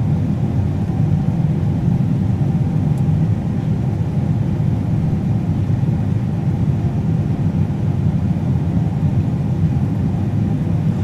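Combine harvester running steadily while cutting wheat: a steady low rumble with a faint even hum above it.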